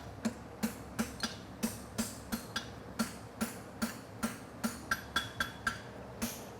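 Hand hammer striking hot steel on an anvil in a steady rhythm of about three blows a second, each with a brief metallic ring: upsetting (bumping up) the end of a concave horseshoe bar to gather material for a wedge.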